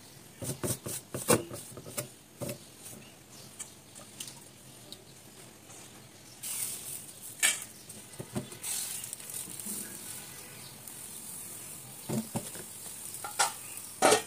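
Rice batter sizzling on a hot clay pan, a steady hiss that starts about six seconds in as the batter goes onto the pan. A few sharp knocks and clinks of pan and utensils come early on, and again near the end as a metal lid is handled.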